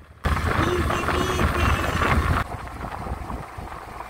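Honda Hornet motorcycle riding, heard through a chest-mounted phone: engine rumble under heavy wind noise on the microphone. It starts suddenly just after the beginning and drops to a quieter level about two and a half seconds in.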